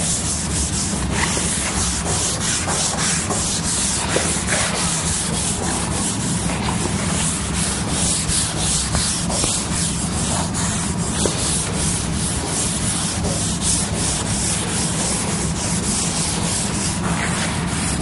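Scotch-Brite scuff pad scrubbed by hand over the painted hull of a john boat in quick, steady back-and-forth strokes: scuffing the paint smooth so that adhesive camouflage will stick.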